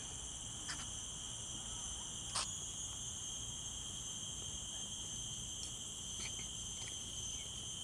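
Steady high-pitched insect chorus, several tones held at once without a break, with a brief sharp tick under a second in and another about two and a half seconds in.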